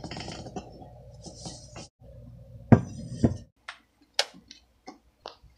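Kitchen handling: a low rustle while coffee grounds are poured into a stainless steel carafe, then two heavy knocks and a string of short sharp clicks and clinks as the carafe and a glass electric kettle are set down and worked.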